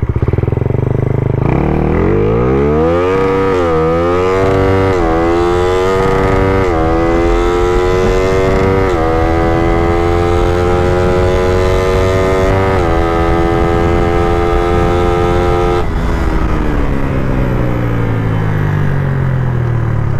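A high-compression Suzuki Raider R150 single-cylinder motorcycle accelerating hard from a start. The engine pitch climbs and drops back at five quick upshifts, which the rider says ran into the rev limiter. About 16 seconds in the throttle closes and the engine note falls steadily as it slows.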